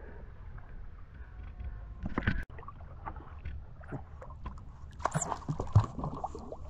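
Water sloshing and splashing close to the microphone as otters swim around it, over a low rumble, with a cluster of sharper splashes about two-thirds of the way in.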